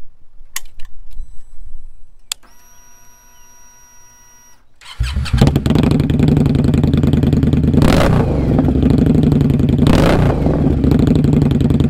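Indian Scout Sixty's V-twin started up: a few clicks as the ignition is switched on, then a steady whine for about two seconds as the fuel pump primes. The engine catches and settles into a loud, steady idle, with two short blips of the throttle. This is the first start after the fuel pump screen was replaced.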